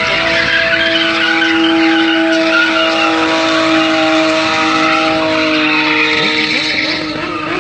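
BMW drift car with its engine held at high revs and tyres screeching as it slides sideways, the engine note staying nearly steady; it fades a little near the end as the car pulls away.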